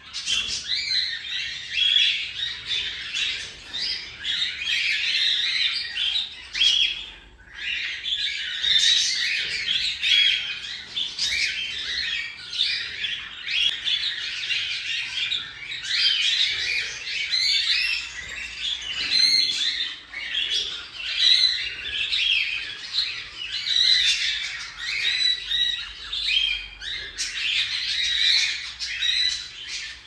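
Cockatiel chick giving rapid, scratchy calls over and over, with a short break about seven seconds in. These are the begging calls typical of an unweaned chick.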